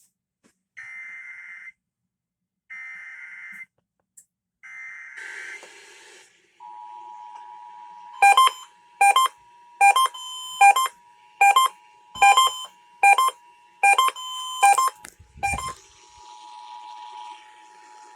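Emergency Alert System test signal: three short bursts of the SAME data header warble about a second apart, then the steady two-tone EAS attention signal. For about seven seconds during the attention tone, a separate loud beep repeats about every 0.7 s over it, and there is a brief low thump near the end of the beeping.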